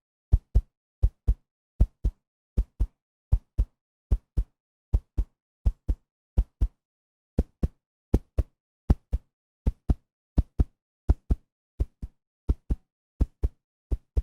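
Heartbeat sound effect: a steady lub-dub of paired low thumps, about 80 beats a minute.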